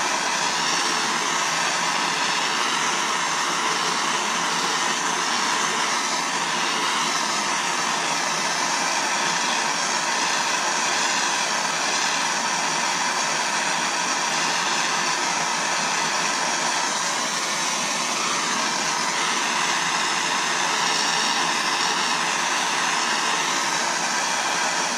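Harris air-acetylene turbo torch with a size 4 tip burning with a steady, unbroken hiss, heating a buckle from underneath to bring it up to the temperature that melts hard silver solder.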